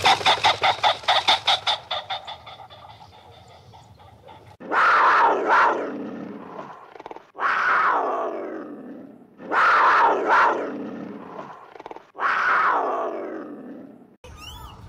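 An animal calling: a rapid run of pulsed calls fades out in the first two seconds, then four long loud calls follow about two seconds apart, each starting suddenly and falling in pitch.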